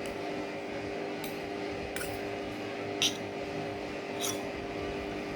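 Four light clicks of cutlery against a plate or glass during eating, spaced about a second apart, over a steady background hum.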